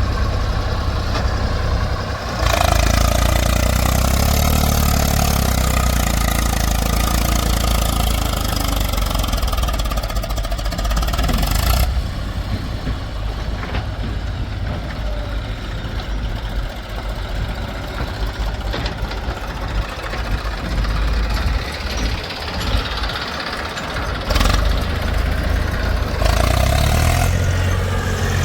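Diesel engines of a backhoe loader and tractors running and idling, a steady low rumble whose character changes abruptly several times.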